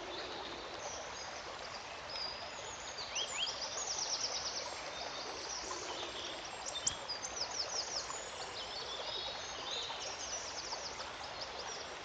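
Small woodland songbirds calling and singing: many short high chirps and quick trilled runs, busiest in the middle, over a steady background hiss.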